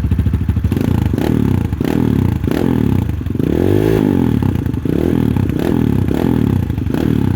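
Kawasaki KLX150's single-cylinder four-stroke engine blipped repeatedly through a fat-canister aftermarket slip-on exhaust, the revs rising and falling back about every two-thirds of a second, with the biggest rev in the middle. The pipe is quieter than the rider's old one.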